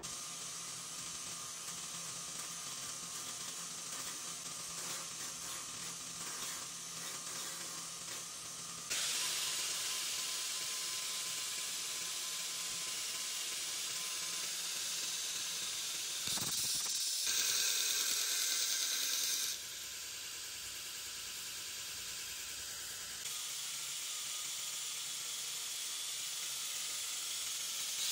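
Belt grinder running with a steel canister-Damascus blade blank pressed against its abrasive belt, giving a steady grinding hiss as the blade is shaped by stock removal. The level jumps up and down abruptly several times.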